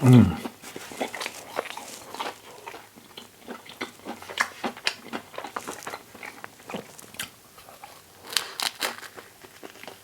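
Close-miked chewing and biting of a toasted English muffin sandwich with vegan sausage and cheese: a run of small crunches and mouth clicks, busiest about eight seconds in.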